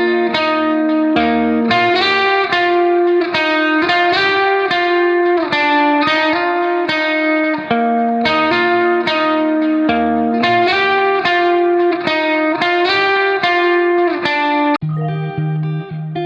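Background music: a quick melody of plucked notes that shifts to a lower, sparser part near the end.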